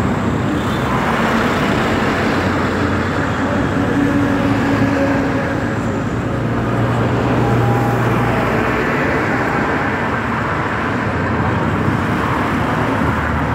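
Road traffic going by close at hand: a steady wash of passing vehicles that swells and eases, with a low engine hum growing louder about halfway through.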